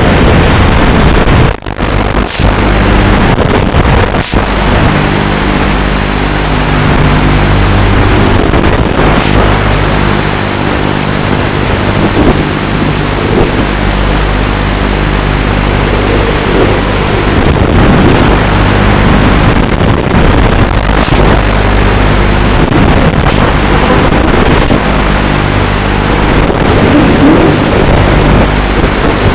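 FPV quadcopter's motors and propellers running in flight, their pitch shifting with the throttle, with wind noise on the onboard microphone. Two brief sharp dropouts come in the first few seconds.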